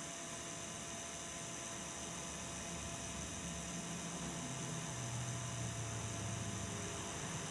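Steady background hum and hiss, with a faint low drone that comes in about halfway through and grows slightly louder.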